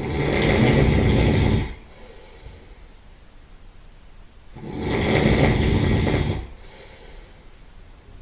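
A person's loud nasal snoring: two long snores, each lasting nearly two seconds, about four and a half seconds apart, with quiet between them.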